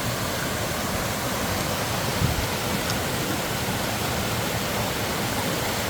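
A mountain valley stream rushing steadily, with one soft knock a little past two seconds in.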